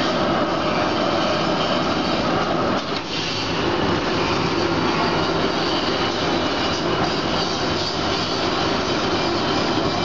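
ZXJ-380 automatic pillow filling machine running, with a steady, loud rushing noise of its fans blowing polyester fibre through the pipes to the filling nozzles.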